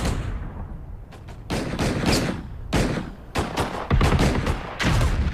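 Irregular gunfire: a string of single shots and short rapid bursts, one after another.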